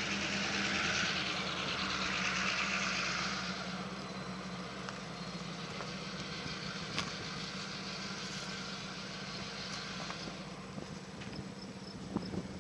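A steady low engine hum under a rushing hiss that is strongest at first and fades about three and a half seconds in, with a few faint clicks.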